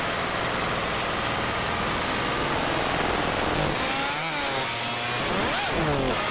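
A small motor running steadily, its pitch rising and falling twice near the end.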